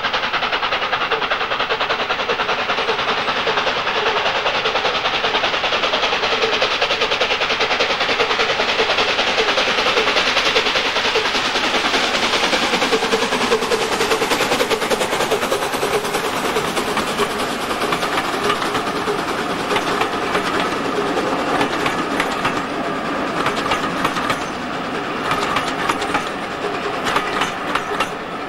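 LNER A4 Pacific 60007 Sir Nigel Gresley, a three-cylinder steam locomotive, working past with its coaches in a steady rush of steam exhaust and running noise. From about halfway, the coaches' wheels clatter rapidly over the rail joints as the train goes by, easing a little near the end.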